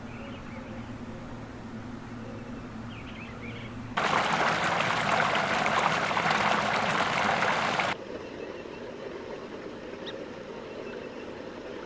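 Running water of a small woodland creek, an even rushing that cuts in abruptly about four seconds in and cuts out just as suddenly about four seconds later. Before and after it there is only faint ambience with a few short bird chirps.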